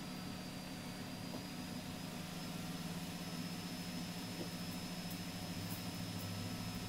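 A steady low hum with a faint, thin high whine above it.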